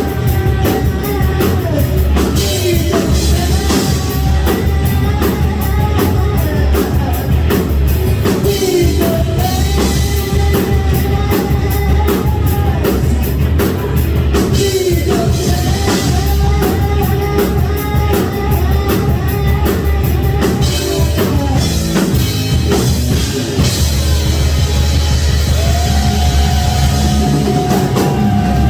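A live rock band playing: a drum kit keeps a steady beat under loud, full guitars, with long held notes that bend at their ends.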